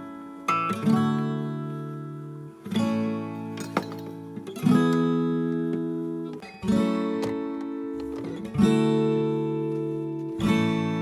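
Background music: acoustic guitar strumming chords, a new chord struck about every two seconds and left to ring out.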